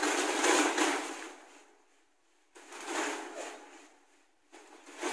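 Rustling and handling noises of papers and a plastic bag being passed across a table, in three short bursts, the first the loudest.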